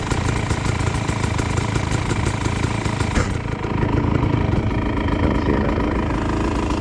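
Off-road motorcycle engine running steadily, its tone changing about three seconds in.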